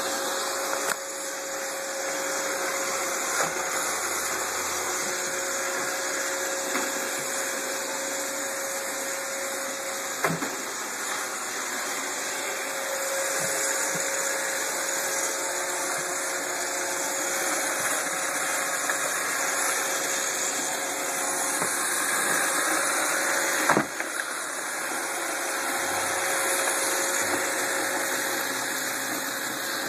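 Roomba robot vacuum running: a steady whirring noise with a constant hum. Two sharp knocks cut through it, about ten seconds in and again about two-thirds of the way through.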